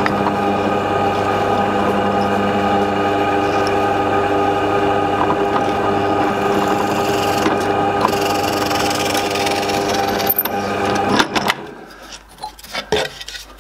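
Benchtop drill press running steadily with a humming motor while a twist bit bores a hole into a plywood board. The machine stops about eleven seconds in, followed by a few light knocks.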